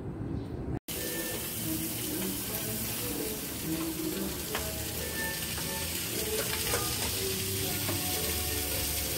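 Steady sizzling of skewered crabs cooking in a foil tray over a charcoal barbecue grill, starting after a short silent break about a second in.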